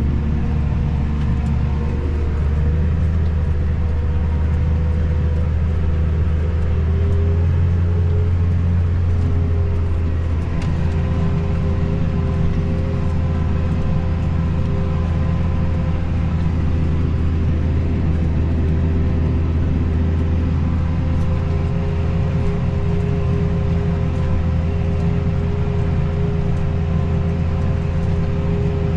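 A motor vehicle's engine running at a steady speed, a constant low drone with faint steady tones above it. Its pitch shifts slightly about two seconds in and again around ten seconds in.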